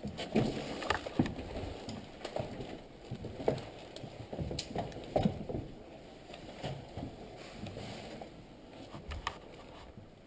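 Scattered, irregular knocks and clicks, roughly one every half second to second, thinning out after about five seconds.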